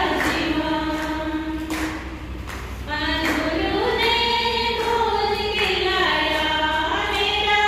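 A woman singing unaccompanied into a microphone, in long held notes with slow glides between them and a short break between phrases about two seconds in.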